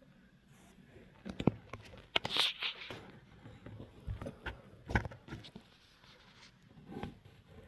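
Scattered light knocks and clicks with a short rustle about two seconds in: clothing and gear being shifted and handled in a hunting stand.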